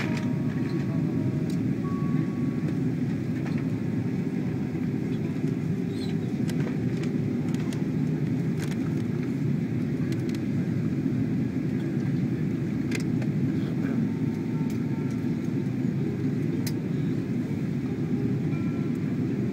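Steady low rumble of a jet airliner's engines and airflow, heard from inside the passenger cabin during the final approach to landing.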